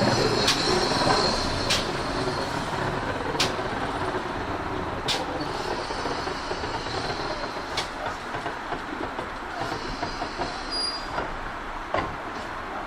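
Train wheels clicking over rail joints as a train rolls past, with sharp clicks every second or two over a steady rumble that slowly fades.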